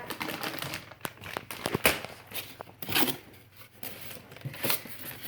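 Packaging being handled during an unboxing: irregular crinkling and rustling with scattered sharp clicks.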